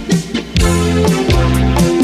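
Instrumental section of a Latin band song: bass guitar, electric guitar, keyboards and drums with a steady beat. The band thins out briefly at the start, then comes back in full about half a second in.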